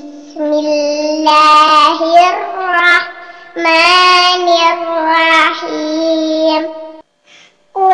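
A young girl's voice chanting Quran recitation in murottal style, drawing out long, wavering held notes. There is a short breath pause about halfway and another pause near the end.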